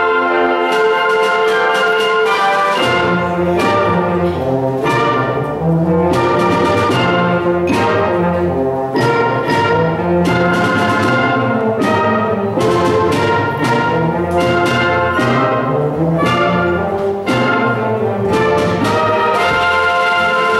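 A school concert band playing a Christmas arrangement: brass and woodwinds hold chords over a moving bass line, with frequent percussion strikes throughout.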